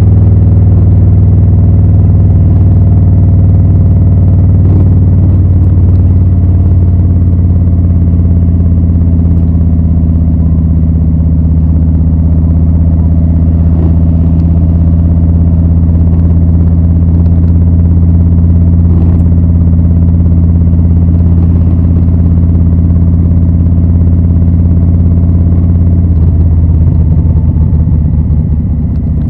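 2020 Harley-Davidson Low Rider S's Milwaukee-Eight 114 V-twin running at steady revs through Rinehart slip-on exhausts. The note changes and gets slightly quieter near the end.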